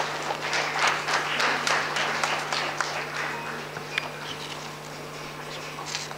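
Audience applauding, many hands clapping that die away after about three to four seconds, over a steady low hum.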